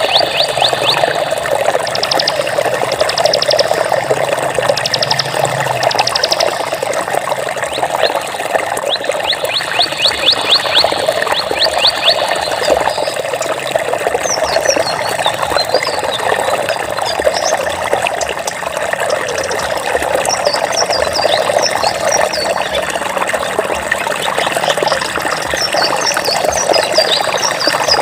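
Water flowing steadily, a continuous rushing of a stream or small falls. Over it come bursts of rapid high trills in the first half and quick high chirps from animal calls later on.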